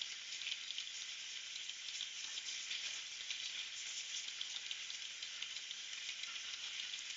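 Steady faint hiss through the Plantronics Savi 8220 headset's noise-cancelling microphone, with office background noise of typing and talking playing in the room: the noise cancelling leaves little more than the hiss.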